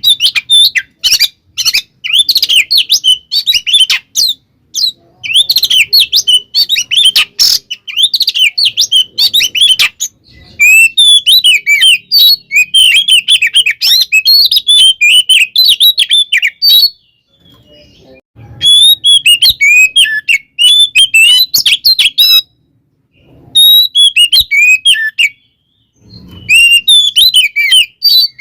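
Oriental magpie-robin singing a loud, rapid, varied song of chirps, whistles and trills, delivered in long bursts with a few short breaks. This is the agitated fighting song (kacer "tarung"), full of mimicked phrases.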